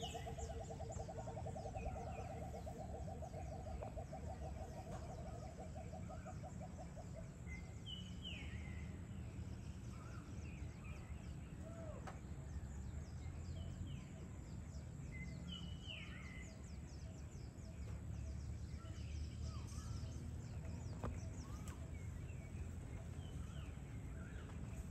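Outdoor evening ambience with birds calling. A fast, evenly pulsed trill on two pitches runs for the first seven seconds or so, then a few short whistled calls glide downward. Under them are a faint fast high ticking and a steady low rumble.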